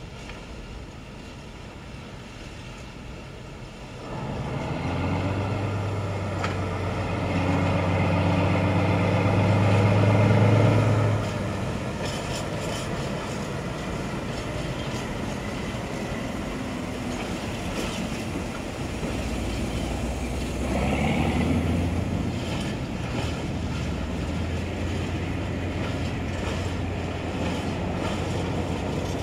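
Diesel shunting locomotive running as it hauls a rake of hopper wagons slowly past. The engine comes in about four seconds in and builds to its loudest around ten seconds, then settles to a steady run with the wagons rolling by, and a brief rising-and-falling sound comes about two-thirds of the way through.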